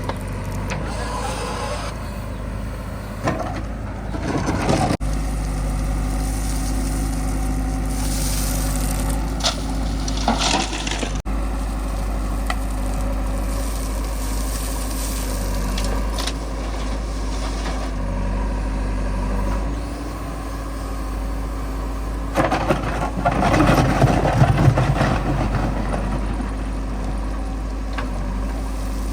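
Heavy diesel vehicle engine running steadily, with louder, rougher stretches a few seconds in, around ten seconds, and again in the later part.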